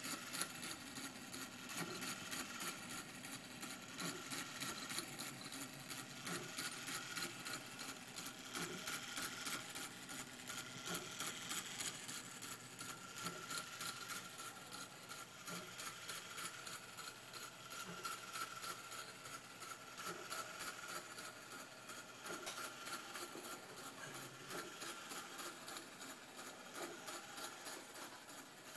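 Antique English chiming clock movement running, a rapid, steady, even clicking that goes on throughout.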